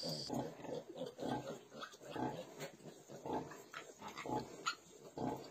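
Sow grunting while her piglets suckle: a steady run of short, low grunts, one or two a second, the rhythmic nursing grunts a sow makes during milk let-down.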